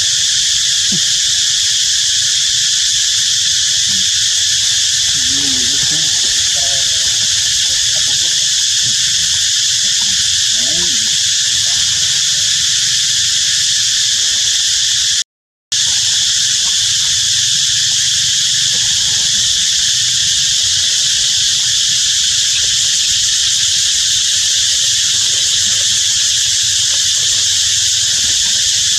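Steady, loud, high-pitched insect chorus droning without a break, with a few faint low calls under it. The sound cuts out completely for about half a second midway.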